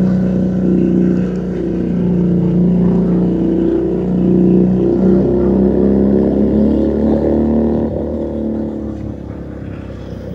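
Keeway SCR 250 motorcycle running through a Rez Speed aftermarket exhaust while riding. The engine pitch rises and falls a few times in the middle as the throttle opens and closes, then eases off and gets quieter near the end.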